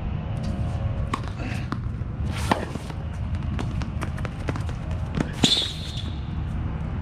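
Tennis balls hitting the hard court and rackets, a string of short sharp knocks with two louder impacts, the later one with a brief high shoe squeak. A steady low rumble lies underneath.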